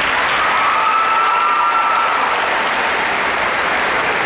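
Crowd applauding: dense, steady clapping from an audience.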